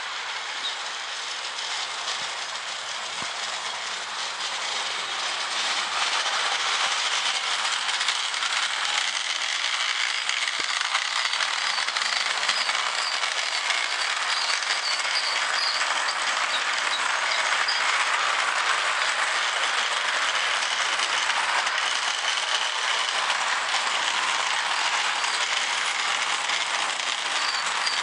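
Lionel O gauge steam freight train running on three-rail track: a steady clatter of wheels and cars on the rails that gets louder about six seconds in as the train comes nearer.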